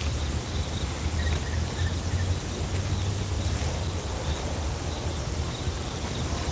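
Night outdoor ambience: faint insect chirping, crickets, repeating over a steady low rumble.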